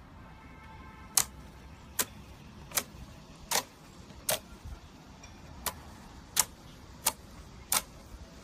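Fingertips poking into a disc of gold glitter slime, each press trapping and popping air with a sharp click, about one every three-quarters of a second.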